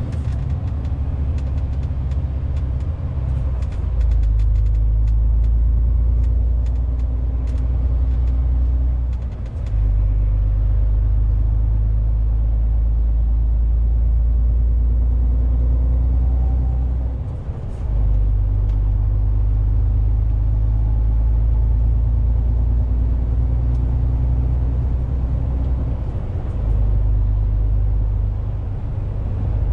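MAN TGX 470 truck's six-cylinder diesel engine and road noise heard from the cab while driving: a steady, deep drone that dips briefly and shifts pitch a few times.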